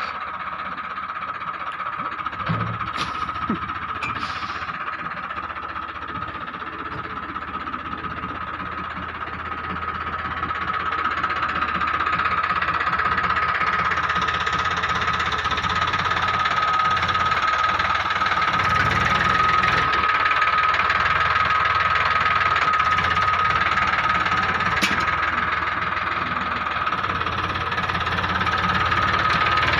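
Mini tractor loader's engine running steadily, with a steady high whine over the engine note. It grows louder about ten seconds in and stays up.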